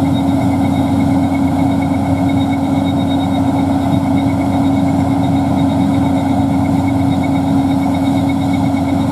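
Gleaner combine running steadily through corn, a constant machine drone with a strong low hum and fainter whine above it.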